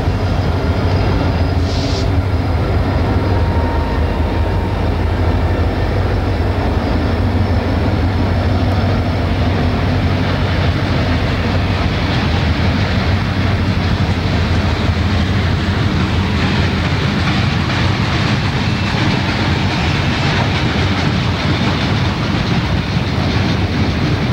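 Diesel locomotives of a freight train passing close by, engines running, then a long string of coal cars rolling past with steady wheel rumble and clickety-clack over the rail joints.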